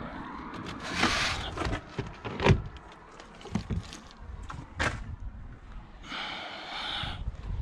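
Gear being handled in the boot of an MPV: bags and shoes rustling, with a few short knocks. Near the end the tailgate is pulled down.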